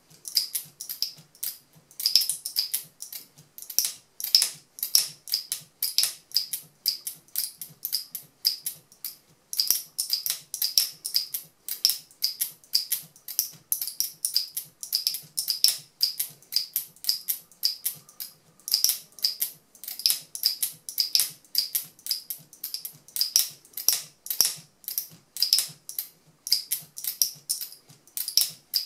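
Turquaz speargun camera mount's locking mechanism clicking as it is snapped shut and released over and over on a speargun barrel, about four sharp clicks a second, with a few brief pauses.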